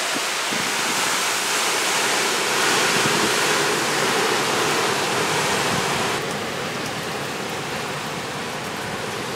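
Hurricane eyewall wind driving heavy rain sideways, a steady dense rush of noise. It is heaviest a few seconds in and eases slightly about six seconds in.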